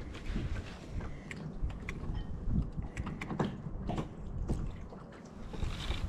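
Choppy water lapping and slapping against the side of a small fishing boat, with wind rumbling on the microphone and scattered light clicks and knocks.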